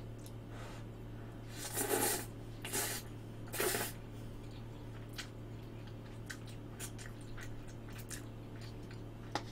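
Instant cup spaghetti noodles slurped in three short slurps about two, three and three and a half seconds in, followed by soft chewing with small scattered clicks. A steady low hum runs underneath.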